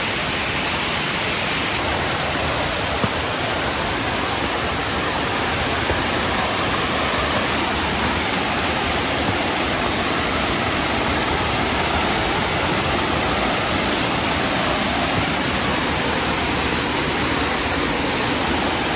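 A waterfall's steady rushing water, an even, unbroken roar of falling water.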